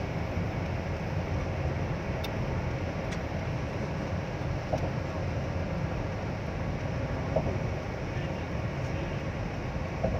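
Steady road and engine noise heard inside a moving car's cabin, mostly a low rumble, with a few faint ticks.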